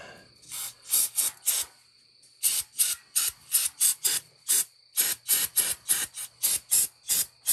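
Aerosol cleaner sprayed onto a small engine gear in a quick series of short hissing spritzes, about three a second, with a brief pause about two seconds in, to wash bugs off the part.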